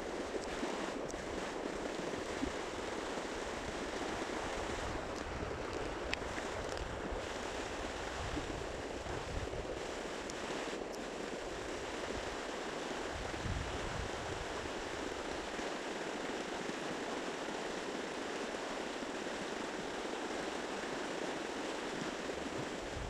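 Steady rush of fast-flowing, shallow river water, with a few brief low wind buffets on the microphone.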